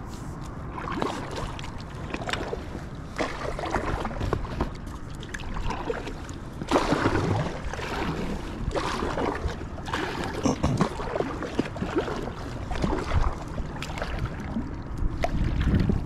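Kayak paddle strokes dipping and splashing in the water, about one stroke a second, over a steady low rumble.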